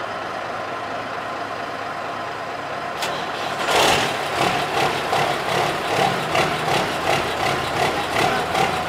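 Diamond Reo semi truck's diesel engine starting. A steady hum is followed by a sharp click about three seconds in, then the engine catches with a loud burst just before four seconds and settles into an idle that swells about twice a second.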